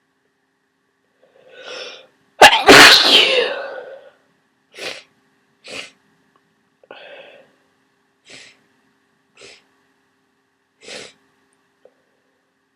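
A person with a cold sneezing: a short drawn-in breath, then one very loud, sudden sneeze about two and a half seconds in, followed by six short, much quieter breath sounds spaced a second or so apart.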